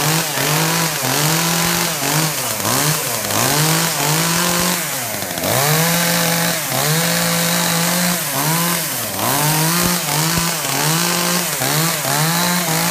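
Gas chainsaw running, its two-stroke engine revved up and let fall back over and over, roughly once a second.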